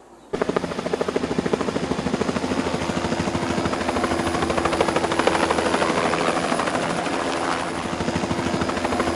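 Helicopter flying: fast, even rotor-blade chop over a steady engine whine, cutting in abruptly about a third of a second in.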